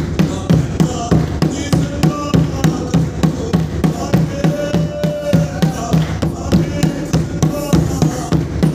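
Singing of a Mizo spiritual song (thlarau lam zai) over a steady drum beat of about three strokes a second.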